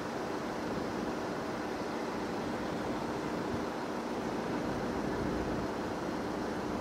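Distant Beechcraft King Air 90 twin turboprop on landing approach: a steady drone with a faint hum, mixed with wind noise on the microphone.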